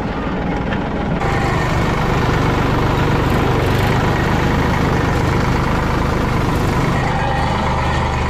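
Farm tractor's diesel engine running steadily under way, a low, even engine drone.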